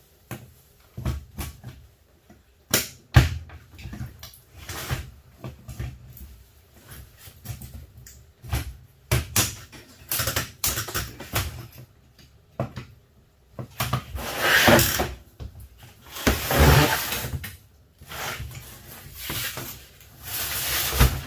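Dishwasher parts being pried apart: a run of separate knocks and clanks, then three longer scraping sounds of about a second each in the second half.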